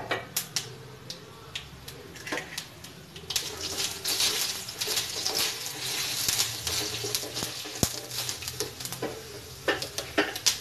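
Mustard seeds, urad dal and chana dal sizzling and crackling in hot oil in a steel kadai: the tempering stage, stirred with a wooden spatula. The sizzle grows thick from about three seconds in, full of small pops, and thins out again near the end.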